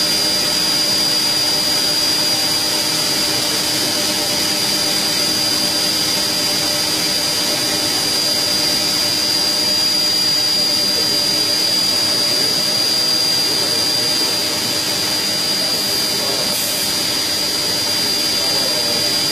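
Steady noise of running factory machinery, with a constant high-pitched whine over a low hum and no pauses.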